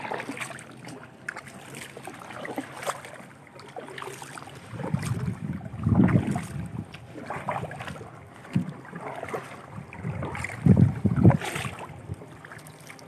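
Double-bladed kayak paddle strokes in the water: irregular splashing and dripping as the blades dip and lift. Several loud low thumps come about six seconds in and again near the end.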